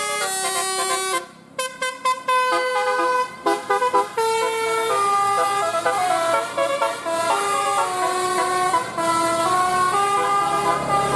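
A bus's multi-tone telolet air horn (basuri horn) playing a tune: several horn notes sound together, each held for about half a second to a second before stepping up or down, with a short break a little over a second in.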